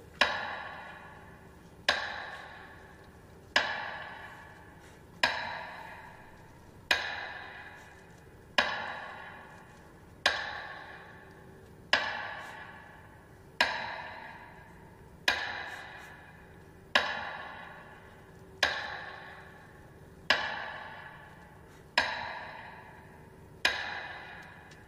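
Metronome beating slowly for a minute of silence, about fifteen strokes at one every 1.7 seconds, each stroke ringing out and fading away before the next.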